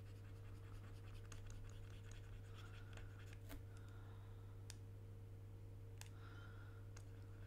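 Faint scratching and a few light clicks of hand work at a computer desk, over a steady low electrical hum.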